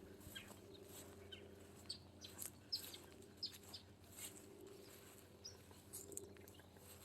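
Faint birdsong: scattered short, high chirps, busiest through the middle of the stretch, over a faint steady low hum.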